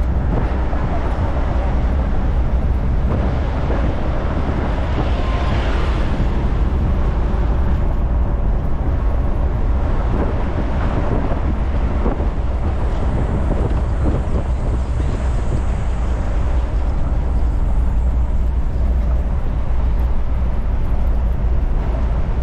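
Moving road vehicle: a steady engine and road-noise rumble, heavy in the low end, running on without a break.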